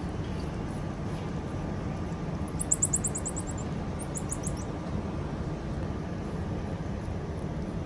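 Common marmosets giving two quick runs of short, very high-pitched falling chirps, the first a little over two seconds in and the second about a second later, over a steady low hum.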